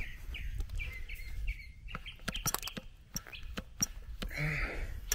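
Hand lever grease gun being pumped into a riding mower's front spindle grease fitting, giving a cluster of sharp clicks as the lever is worked for about three shots of grease. Small birds chirp in short high notes during the first couple of seconds.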